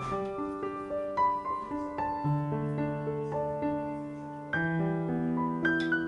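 Background music: slow piano, single notes and held chords, with a new low chord coming in about two seconds in and again after four and a half seconds.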